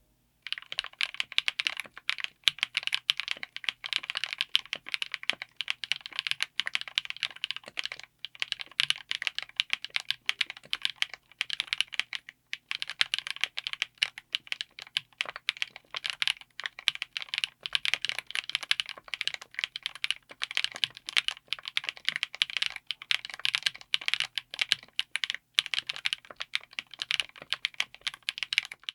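Fast typing on a mechanical keyboard fitted with Chosfox x Masro Ragna linear switches, in an aluminium Tofu60 case with an FR4 plate: a dense, irregular stream of keystrokes with a brief pause about twelve seconds in.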